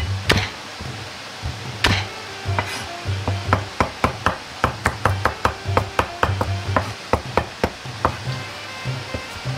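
Chinese cleaver chopping garlic on a plastic cutting board. A couple of heavier knocks come as the cloves are crushed under the flat of the blade, then a fast run of sharp chops, about five a second, as the garlic is minced. Background music plays under it.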